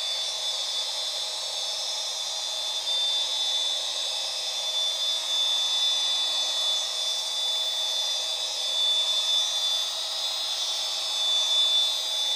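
Electric stone polisher running at about half speed with a soft, flexible polishing pad, buffing scratches out of a porcelain countertop: a steady high-pitched motor whine.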